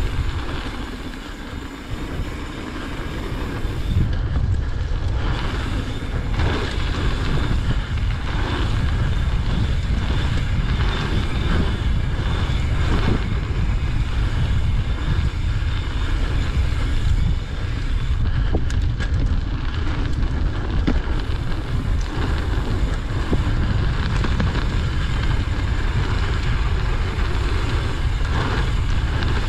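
Wind buffeting an action camera's microphone as a mountain bike rolls along a hard-packed dirt trail, with tyre noise and scattered light clicks and rattles from the bike. It is a little quieter at first and picks up and holds steady from a few seconds in, as speed builds.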